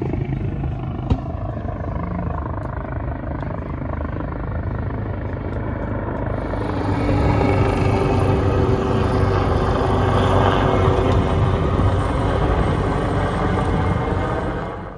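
Helicopter flying overhead: a steady rotor and engine rumble that grows louder about halfway through as it comes closer, then cuts off suddenly.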